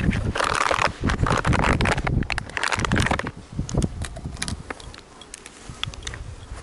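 Footsteps swishing and rustling through thick, knee-high green vegetation in repeated surges. They are loud for about the first three seconds, then die down to occasional light rustles and clicks.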